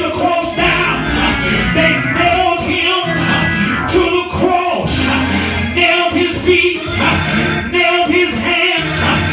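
A preacher's amplified voice in a sung, chanted cadence, carried over live church music with held low notes and a few sharp beats.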